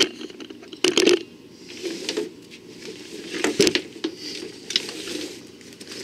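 Handling noise as nylon tactical bags and the camera are moved and set up: fabric rustling with a few sharp knocks, the loudest about a second in and about three and a half seconds in.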